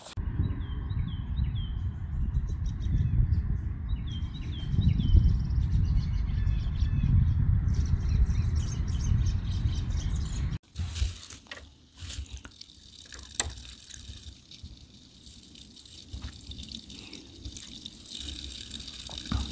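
Small birds chirping in short runs of quick falling notes over a loud, uneven low rumble. About halfway through this cuts off, and scattered clicks and a thin trickle of water follow, running from the tap of a plastic water jug onto grapes being rinsed.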